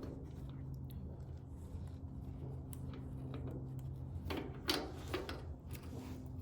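A few short clicks and knocks from taillight parts being handled and fitted, bunched together about four to six seconds in, over a steady low hum.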